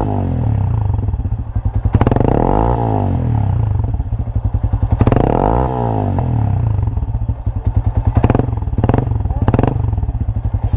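Yamaha Sniper 150's single-cylinder four-stroke engine running through a newly fitted aftermarket power pipe exhaust. It idles, is revved up and back down twice, about two and five seconds in, and then gets a few quick throttle blips near the end.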